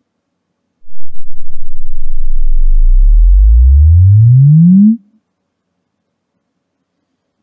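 A REW log sine sweep from 10 Hz to 120 Hz played through the home-theater subwoofers as a bass-calibration measurement. A deep tone starts about a second in, rises steadily in pitch for about four seconds, and cuts off sharply.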